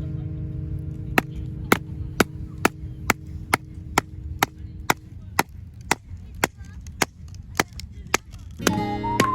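Axe chopping wood, about sixteen sharp, evenly spaced strokes at roughly two a second.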